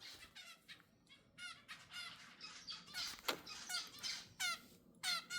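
Baby zebra finches calling over and over in short, quick calls, roughly three a second. A brief click comes about three seconds in.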